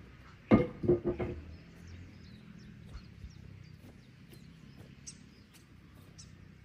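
Three or four sharp knocks in quick succession about half a second to a second in, then faint, short bird chirps now and then over a quiet outdoor background.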